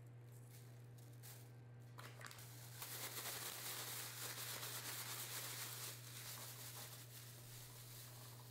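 Thin plastic bag crinkling and rustling as chickpeas coated in olive oil and salt are shaken inside it. The rustle starts about two seconds in, is loudest through the middle and eases off near the end, over a steady low hum.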